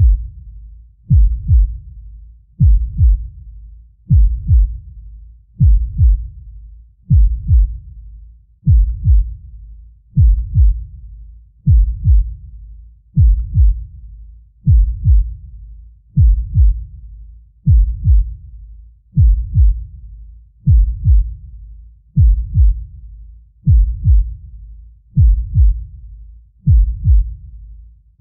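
Deep heartbeat sound effect: slow, steady lub-dub double thumps, low and booming, about one beat every one and a half seconds.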